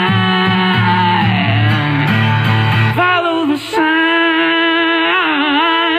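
Live song performance: a singer holds long, wavering notes over guitar. About three seconds in the guitar drops out and the voice carries on.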